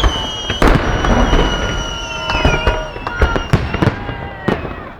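Fireworks salute going off: several sharp bangs, about half a second in and again between three and a half and four and a half seconds, with long whistling tones between them.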